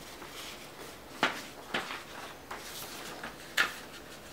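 Hands handling papers at a cardboard shipping box: soft rustling with three sharp taps, the first about a second in, the second half a second later, and the third near the end.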